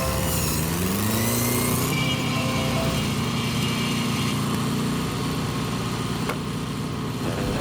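An engine revs up over the first two seconds, its pitch rising, then runs steadily at the higher speed.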